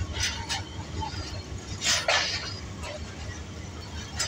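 Outdoor ambience: a steady low rumble with a few short hissing scuffs, twice early on, a pair near the middle, and one more at the end.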